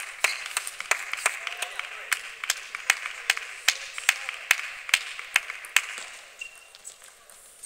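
Applause from a small crowd, with one person clapping a steady beat of about two to three claps a second; it dies away about six seconds in.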